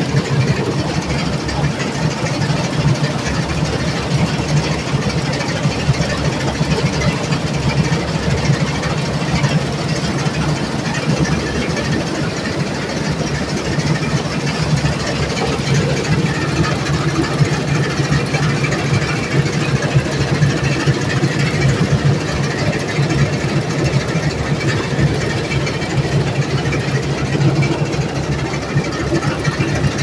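1969 Massey Ferguson 186 combine harvester working through standing grain: its Perkins A4.212 four-cylinder diesel engine and the harvesting machinery make a loud, steady noise throughout.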